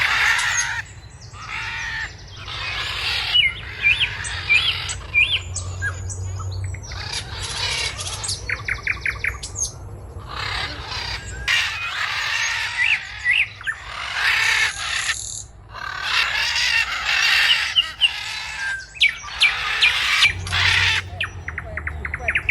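Blue-and-yellow macaw squawking in repeated calls about a second long, with short whistled chirps between them.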